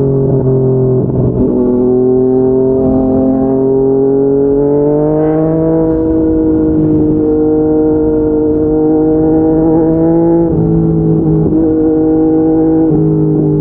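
Yamaha MT-09 three-cylinder engine through an aftermarket slip-on exhaust, heard from the rider's seat while riding. The engine note rises slowly as the bike accelerates, then holds at a steady cruise, with brief dips in pitch about ten and thirteen seconds in.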